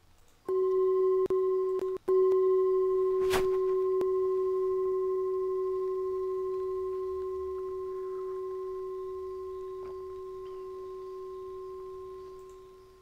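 A single bell-like tone, like a struck singing bowl, rings out about half a second in. It cuts off briefly twice in the first two seconds, then sustains and fades slowly away near the end. A sharp click sounds about three and a half seconds in.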